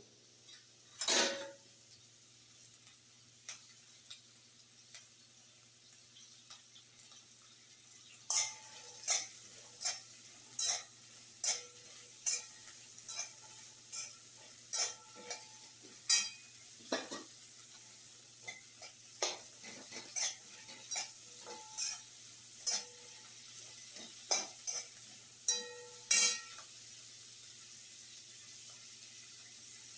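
A metal spoon stirs and scrapes in a steel kadhai, knocking against the pan about once a second with short ringing clanks. Under it is a faint steady sizzle of onion, garlic, peanuts and coconut roasting in oil. The clanks start about a third of the way in and stop a few seconds before the end, with one earlier knock about a second in.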